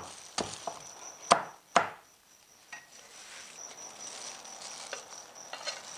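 Cleaver chopping through a crisp-battered fried chicken breast onto a wooden chopping block: several sharp chops in the first two seconds, the last two the loudest.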